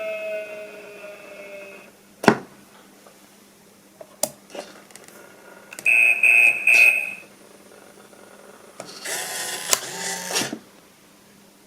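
Homemade Arduino useless box making a string of sounds. A falling electronic tone from its small speaker fades out, then there is one sharp click and a couple of softer clicks. Three short high beeps follow, then about a second and a half of buzzy, hissy noise.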